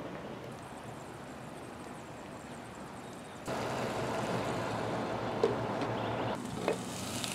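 Faint steady outdoor background, then, about halfway in, sliced onions sizzling steadily in a covered pan, with two light clinks of the glass lid against the pan.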